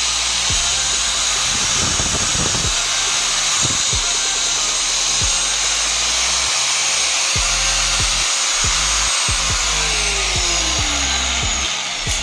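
Jon Bhandari 801 angle grinder (850 W) running free with no disc fitted, giving a steady high whine. About nine and a half seconds in it is switched off, and the whine falls in pitch as the motor winds down.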